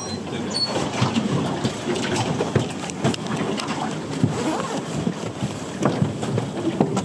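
Boat under way on a choppy sea: steady wind and water noise, with scattered knocks and rattles from crab pots being handled on the deck.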